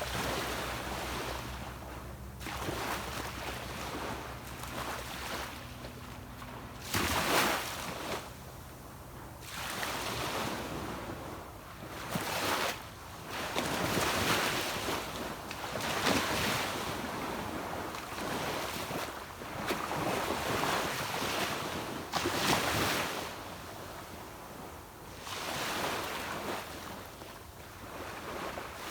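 Small sea waves breaking and washing up a beach, a fresh surge every two to three seconds. Under the surf, a distant boat engine hums low for the first few seconds, then fades out.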